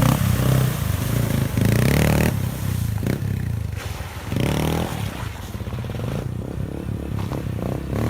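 Motorcycle engine running at low speed, with a couple of brief rises in revs.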